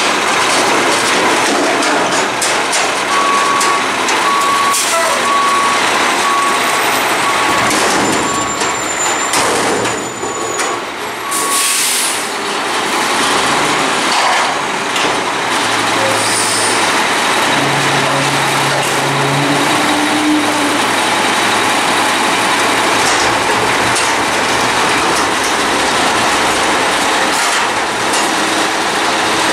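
Autocar front-loader garbage truck with a Bridgeport Frontier body working a dumpster: engine and hydraulics running, a reversing alarm beeping steadily for several seconds, then a sharp air-brake hiss about twelve seconds in. The engine keeps running, its hum rising in pitch for a few seconds later on.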